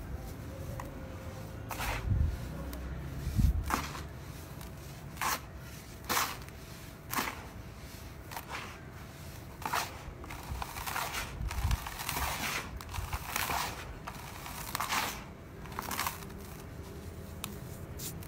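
Dry sand-cement mix being squeezed and crumbled by hand: repeated gritty crunches and the hiss of falling grains in short irregular bursts, about one or two a second, with two dull thumps in the first four seconds.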